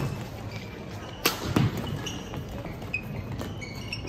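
Badminton play on an indoor court: two sharp racket strikes on a shuttlecock a fraction of a second apart, about a second in, with a low thud of a footfall and a few smaller knocks and short high squeaks.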